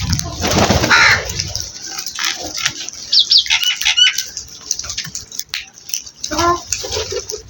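Birds calling: loud harsh calls at the start and again near the end, with a quick run of high chirps about four seconds in.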